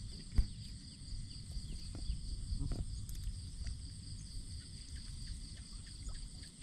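Steady high-pitched insect chorus, with a low rumbling noise underneath and one sharp knock about half a second in.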